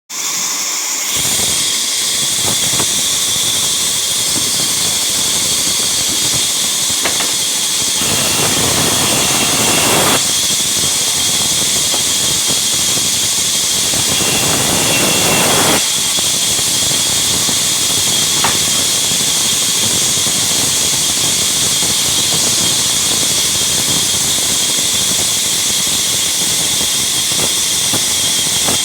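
Sawmill log-cutting saw running with a steady high whine and hiss. The sound swells fuller and louder twice for a couple of seconds each, about a third of the way in and again past halfway, as the blade cuts through the wood.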